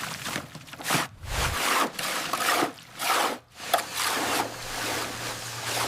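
Rough scraping strokes repeating about once a second, each a short burst of hiss-like noise with brief gaps between.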